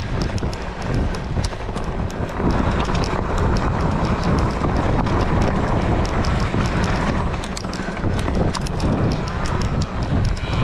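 Wind buffeting an action camera's microphone, with a rapid, irregular clatter of small clicks and knocks throughout.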